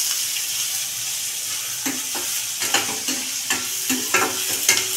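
Chopped onions sizzling in hot oil in a stainless-steel kadai while being sautéed. A steel spatula scrapes and clinks against the pan about every half second from about two seconds in.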